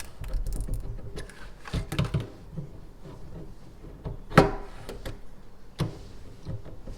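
A few sharp clicks and knocks of a tool against the faucet while a cartridge retaining nut is tightened back down, the loudest about halfway through.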